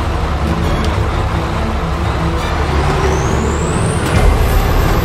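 Engine of a Berkut 8x8 amphibious all-terrain vehicle running steadily as it wades through swamp water. A thin high whine rises in pitch from about halfway through, then holds.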